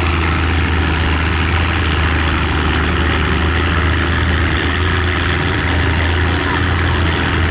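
1951 John Deere AR's two-cylinder engine idling steadily, with a strong low hum and no change in speed.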